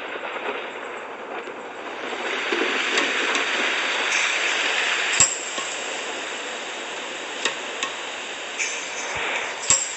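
Steady rain falling, with sharp drops striking a hard surface every so often; the loudest strike comes about five seconds in and another just before the end.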